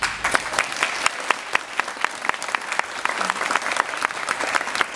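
Audience applauding, breaking out at once, with many sharp individual claps close by.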